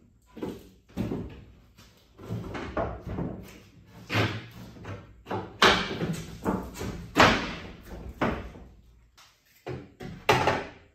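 Wooden pre-hung split-jamb interior door and frame knocking and thumping against the doorway as it is fitted, a string of about a dozen irregular knocks that cuts off suddenly at the end.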